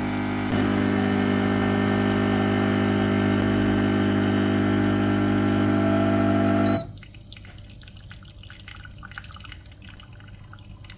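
Karaca Coffee Art 1101 espresso machine's pump humming steadily as it pushes water through a single-shot portafilter to brew an espresso. It cuts off suddenly about seven seconds in with a short high beep, leaving faint dripping into the cup.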